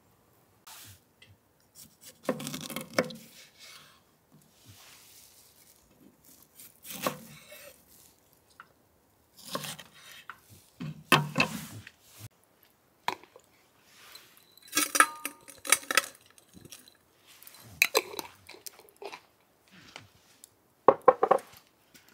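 Kitchen handling sounds: a series of separate clatters and knocks of metal cookware and utensils being moved and set down, about every two to four seconds. One, about fifteen seconds in, carries a short metallic ring.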